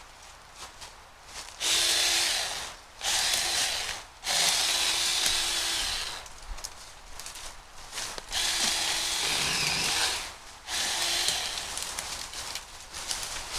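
Small 6-inch battery-powered mini chainsaw running in about five bursts of one to two seconds each, with short pauses between, cutting through wood.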